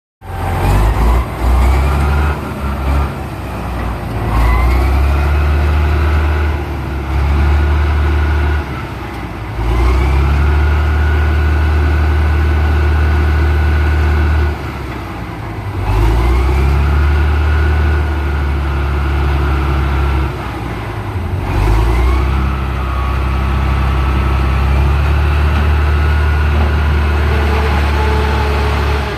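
Caterpillar 627 scraper's diesel engines revving up and dropping back, about four times, each rise bringing a whine that climbs in pitch before it holds steady.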